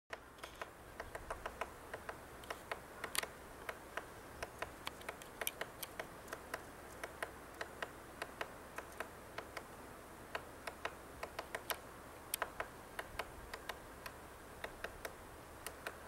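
Hairy woodpecker pecking into tree bark while it forages: sharp, irregular taps, about two or three a second, as it chips away at the wood.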